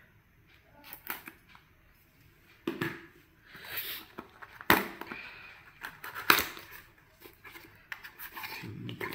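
Thin cardboard retail box being opened by hand: the seal scraped and torn, with scattered sharp clicks and rustling as the paperboard flaps are pried apart and the box is handled.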